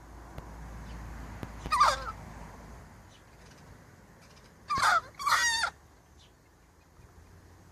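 Hen with a sneezing fit making three short, sudden, squeaky sounds: one about two seconds in, then two close together near five seconds.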